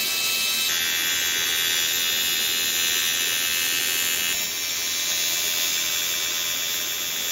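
AC TIG welding arc buzzing steadily while welding a cast aluminum flange. The tone shifts slightly about a second in and again about four seconds in.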